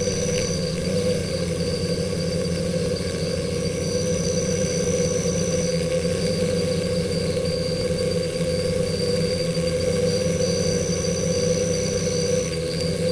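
Stingless bees buzzing at their nest hole, a steady low drone. A thin high whine sits above it, with a second high tone that comes in and drops out a few times.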